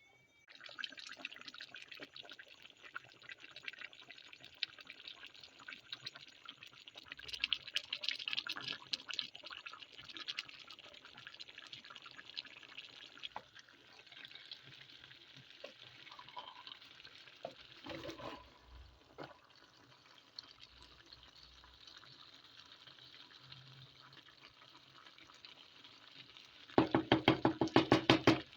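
Food cooking in a pot, with steady crackling and bubbling and a few scattered clicks. Near the end comes a quick run of about ten loud, even knocks a second, lasting under two seconds.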